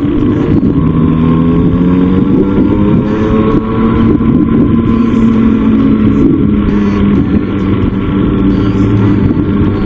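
Raptor 87 pocket bike's stock engine running under way on a ride, its note shifting up and down a few times with the throttle.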